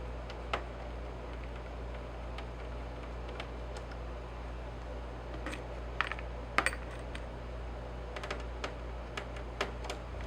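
Scattered light clicks and taps of small hard objects being handled, busiest around six to seven seconds in and again near the end, over a steady low hum.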